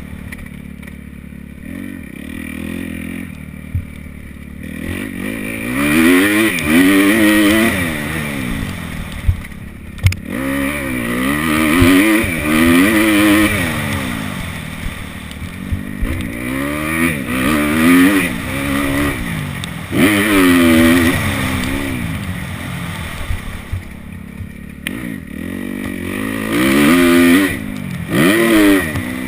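Kawasaki KX250F four-stroke single-cylinder dirt bike engine being ridden hard, the revs climbing and dropping again and again as the throttle is worked, with a few sharp knocks and clatter in between.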